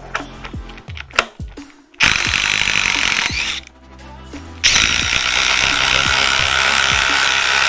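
Cordless impact driver running in two bursts: one about two seconds in, lasting about a second and a half, then a longer run starting nearly five seconds in. A few light clicks come before the first burst.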